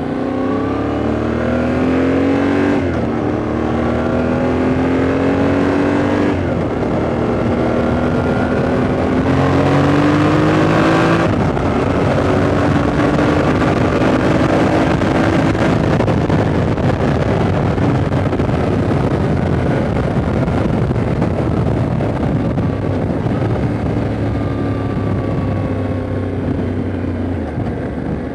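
Yamaha Ténéré 700's 689 cc parallel-twin engine accelerating through the gears: its pitch rises and then drops at upshifts about three, six and eleven seconds in. After the last shift it pulls steadily at cruising speed, with wind and road noise rushing.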